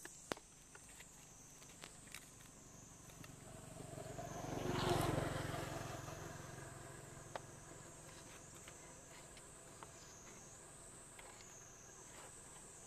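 A vehicle passing by, swelling to its loudest about five seconds in and fading away, over a steady high insect drone.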